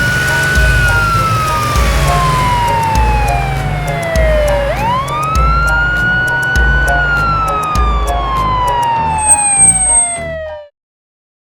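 A siren sound effect wailing in two long slow falls in pitch, with a quick rise between them, over background music with a steady low beat; both stop suddenly near the end.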